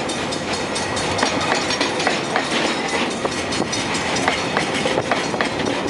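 Freight train wagons rolling past close by: a steady rolling noise of wheels on rail, broken by frequent sharp clicks as the wheels cross the rail joints.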